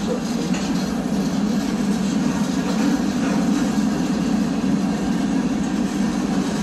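CSX freight train's covered hopper cars rolling past, a steady rumble of steel wheels on the rails with faint clicks.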